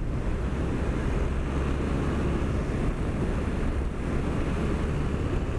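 Steady wind rush over a helmet-mounted microphone with a furry windshield, from a Triumph Bonneville motorcycle cruising at road speed. The parallel-twin engine's low steady drone runs underneath.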